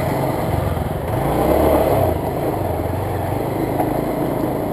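Motorcycle engine running at low speed over a rough, muddy dirt track, the note rising as the throttle is opened about a second in and easing back after about two seconds.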